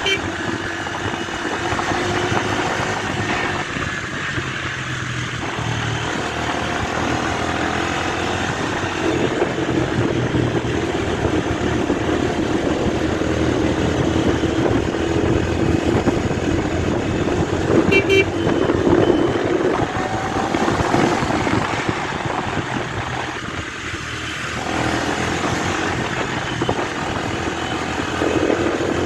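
Bajaj Dominar 250's single-cylinder engine running under way in busy road traffic, with vehicle horns honking at times and a short sharp sound about two-thirds of the way through.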